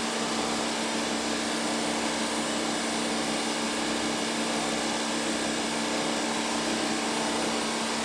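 Steady whir of an electric motor running without change, with a low hum and a faint high whine.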